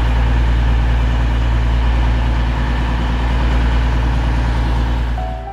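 A heavy engine idling close by: a loud, steady low rumble with a hum in it, fading out near the end.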